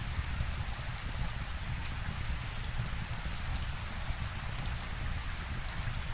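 Steady rainfall with a low rumble underneath, and scattered small sharp crackles of a wood fire.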